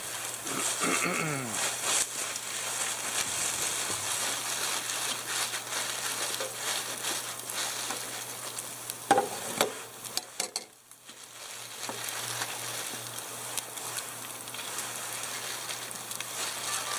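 Bacon frying in a skillet and a New York strip steak searing on a charcoal grill grate: a steady sizzle. A few sharp clicks come about nine seconds in, and the sizzle drops out briefly near eleven seconds before going on.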